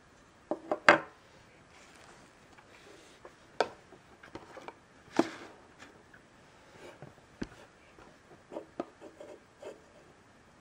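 A small TARDIS model figurine handled and set down on a wooden table: a series of sharp knocks and taps, the loudest about a second in, with light rubbing and handling between.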